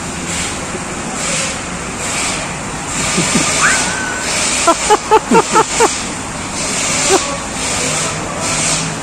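Cars passing on the road over the steady rush of a large fountain's water jets. About five seconds in, a quick run of about six short bursts of a voice.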